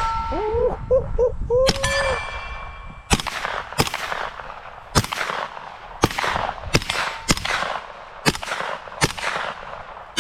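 A ringing metallic clang near the start, typical of a hit steel target, then eight 9mm gunshots fired one at a time at an uneven pace, roughly one a second, from about three seconds in.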